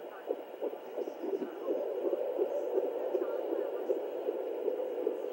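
Home fetal Doppler picking up an unborn baby's heartbeat at 32 weeks, a fast pulsing whoosh. About two seconds in, the pulses merge into a steadier, slightly louder hum.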